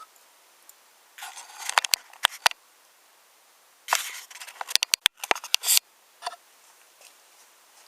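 Wooden toy trains and wooden track pieces clicking and clacking together in two spells of sharp clatter, a short one about a second in and a longer, busier one around the middle.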